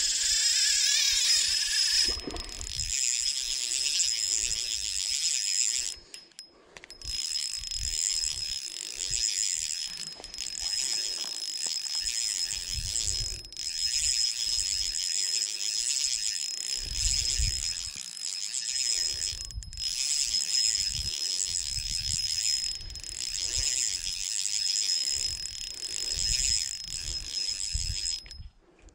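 Shimano 1000-series spinning reel being cranked: a steady high whir with a thin whine from the turning rotor and gears, broken by a few brief pauses in the retrieve, with low handling thumps underneath.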